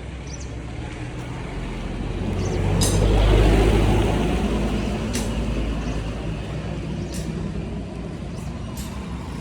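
A motor vehicle passing by: engine and road noise swell to their loudest about three seconds in, then slowly fade, over a steady low engine hum.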